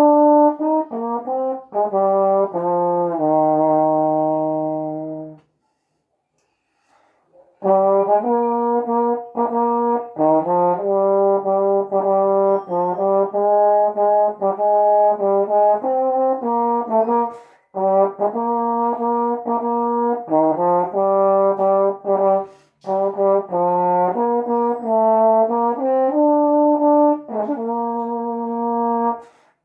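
Solo trombone playing a hymn melody, one note at a time, with some notes held. The playing stops for about two seconds around six seconds in, then carries on.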